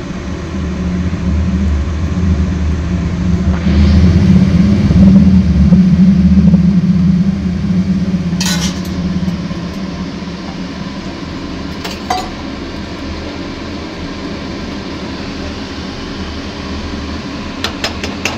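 A steady low mechanical hum in a kitchen while a fish curry cooks, swelling between about four and seven seconds in and then settling. A sharp clink of a metal pot or utensil comes about eight seconds in, with a fainter one around twelve seconds, and a quick run of light clicks near the end.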